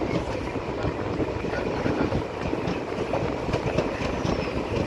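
Passenger train coach moving along the track, heard from its open doorway: a steady rumble of wheels on rail with many irregular clatters and rattles.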